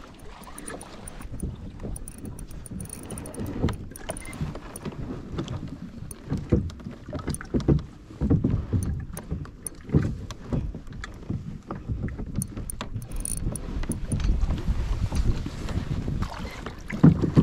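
Water slapping and sloshing against a fishing kayak's hull as it moves on the sea, with irregular low knocks, the loudest near the end, and wind buffeting the microphone.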